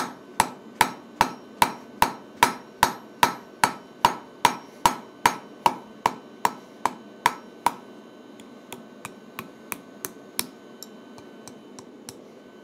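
Hand hammer striking a red-hot steel bar on an anvil: a steady run of blows about two and a half a second, each with a short metallic ring. About eight seconds in the blows become lighter taps.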